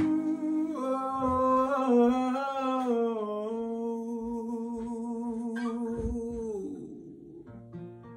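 A man's voice singing a wordless, hummed melody, ending on a long held note that fades out about seven seconds in. A few quiet acoustic guitar notes follow near the end.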